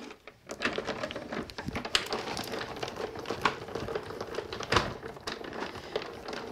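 Spellbinders Platinum manual die-cutting machine pressing a plate sandwich through its rollers, giving a steady run of crackling clicks as the typewriter grid alphabet die cuts into gold pearl card. A single louder knock comes near the end.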